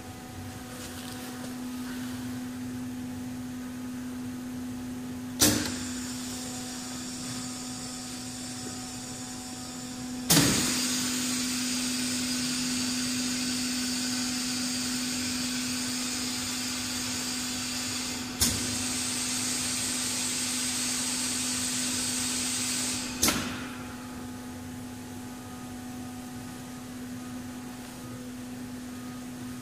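Semi-automatic high-pressure 5-gallon bottle washer running, with a steady hum throughout. About five seconds in, a sharp valve click sets off a loud hiss of high-pressure jets; a second click near ten seconds makes it louder. Another click comes partway through, and the hiss cuts off with a click about 23 seconds in.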